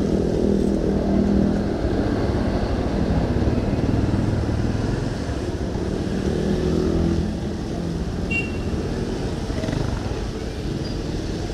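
Motorcycle engines passing close by on a city street, their pitch rising and falling over a constant low traffic hum.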